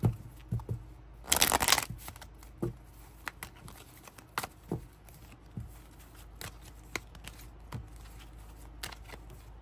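A deck of cards being shuffled by hand: a sharp click at the start, a dense crackling riffle lasting about half a second around a second and a half in, then scattered single flicks and taps as cards are handled and laid down.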